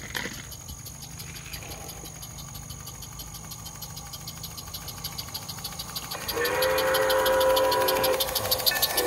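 A live-steam garden-scale locomotive's whistle blows a long blast of several steady notes at once, starting about six seconds in, breaks off briefly near the end and sounds again.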